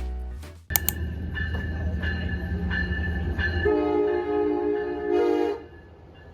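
A train running with a steady low rumble, then a train horn sounding one multi-tone chord for about two seconds, starting a little past the middle.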